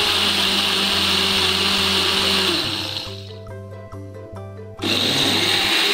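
Electric countertop blender crushing ice with cola into a slush, running at full speed, winding down about three seconds in and starting up again abruptly near the end.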